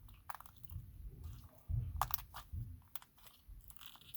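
Jiggly slime being squeezed and handled by hand, giving a scatter of small wet clicks and pops with a few soft low thumps.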